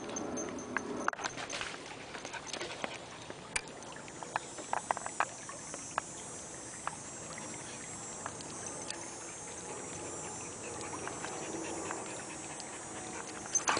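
Faint outdoor ambience beside a creek: a soft steady hiss, with scattered light clicks and taps in the first half.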